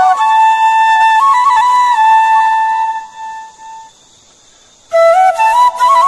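Background music: a flute melody of long held notes that fades out about three seconds in, then starts again after a short pause about five seconds in.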